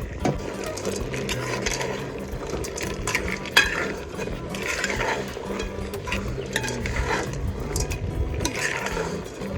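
A spoon stirring and scraping in a pot of soup, with irregular clinks against the pot.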